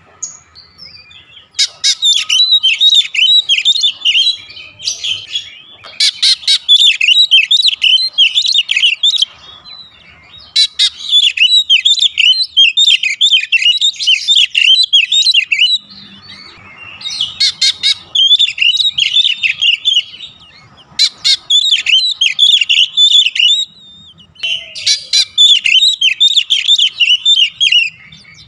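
Oriental magpie-robin singing a loud, fast, varied warbling song in about six bursts of a few seconds each, with short pauses between.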